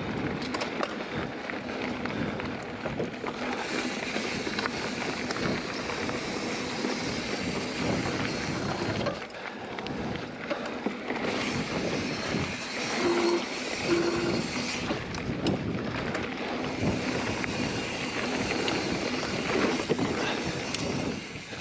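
Mountain bike being ridden on a dirt trail: steady wind rush over the microphone with tyre rumble and scattered clicks and rattles from the bike. Two short, even notes about a second apart sound near the middle.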